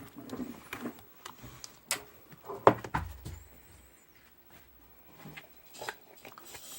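Slime being played with by hand: irregular sticky clicks and small pops, with a quieter stretch in the middle.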